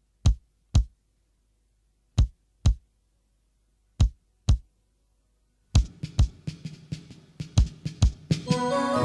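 Intro of a reggae song: pairs of sharp drum hits, the two hits of each pair half a second apart and the pairs about two seconds apart, over silence. About six seconds in, a busier run of percussion comes in, and near the end pitched instruments join as the full band starts.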